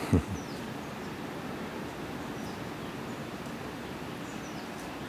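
Steady outdoor background noise with a few faint, short, high falling chirps from birds, and one brief low thump right at the start.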